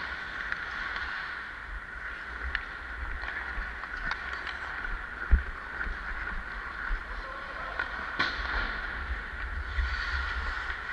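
Ice hockey skates scraping and carving on the ice as the player skates, a steady hiss under a low rumble, with scattered sharp clicks and one low thump about five seconds in.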